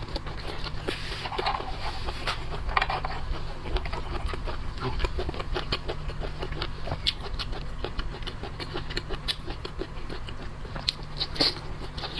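Close-miked eating sounds of spicy boiled seafood: wet chewing, sucking and lip smacking with many small clicks and crackles, over a steady low hum.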